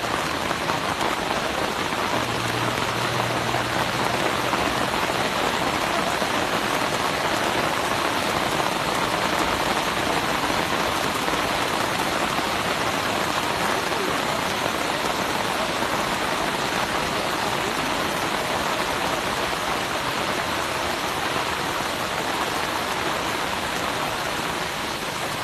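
Heavy rain pouring onto deep floodwater, a loud, steady hiss of drops splashing on the water's surface.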